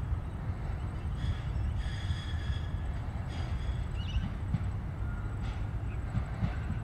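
D1-class Siemens Combino tram running past on its track, a steady low rumble with short high chirps over it.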